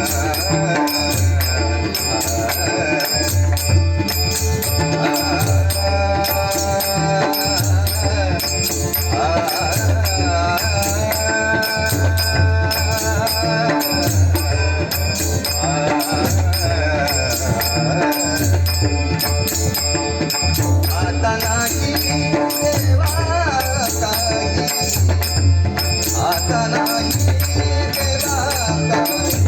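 Devotional bhajan music in raga Bhairavi: small hand cymbals clashing in a fast, steady rhythm over a regular deep drum beat, with a melody line gliding above.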